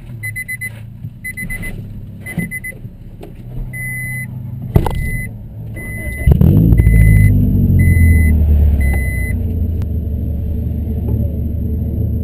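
A car's warning chime beeps steadily. About five seconds in a door thumps shut, and a second later the engine starts with a quick rev and settles into a steady idle. The chime stops a few seconds after the start.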